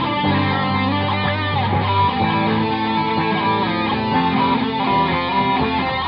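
Background instrumental music led by guitar.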